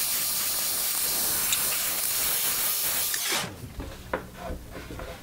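Handheld propane plumbing torch burning with a steady hiss while heating an aluminum foil mast to free a corroded, seized bolt. The hiss stops about three and a half seconds in, followed by a few light knocks and clicks.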